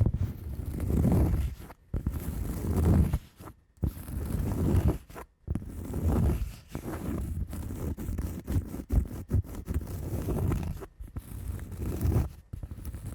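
Hand scratching strokes across a textured surface: slow, drawn-out scrapes about a second each, turning into quicker, shorter scratches from about six seconds in.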